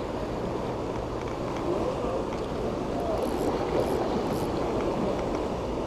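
Steady rushing of fast, churning water below a harbor wall, with a low steady hum beneath it.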